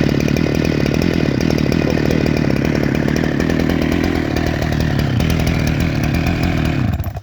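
Chainsaw running steadily under power, cutting off suddenly near the end.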